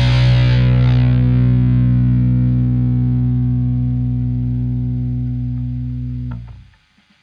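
Electric bass guitar holding one low note that rings on and slowly fades, then is stopped about six seconds in. Near silence follows, with faint string and handling noise.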